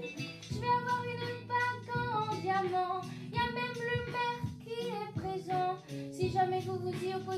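A song: a high female singing voice carrying a stepping melody over a steady instrumental accompaniment.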